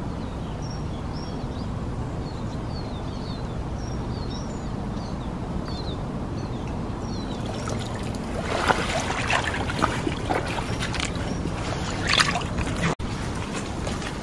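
Water sloshing and streaming off a landing net as it is lifted from shallow lake water, with splashing as the angler wades through the margin, starting about halfway through and surging again near the end.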